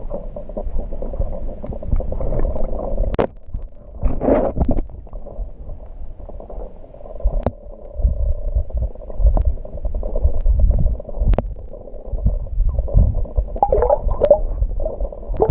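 Muffled, uneven underwater rumbling and gurgling of water moving around a submerged camera, with a few sharp clicks.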